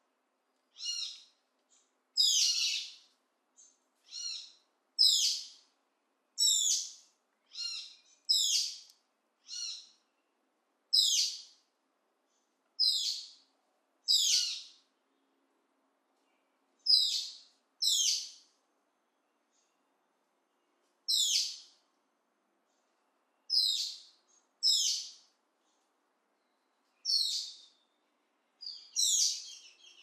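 A bird calling over and over in the tropical forest: short, high calls of about half a second each, repeated every second or two, with a few longer pauses.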